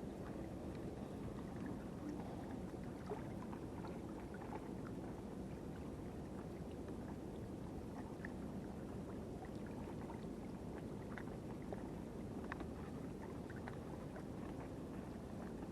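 Sea water washing at the shore edge: a steady low wash with faint scattered clicks.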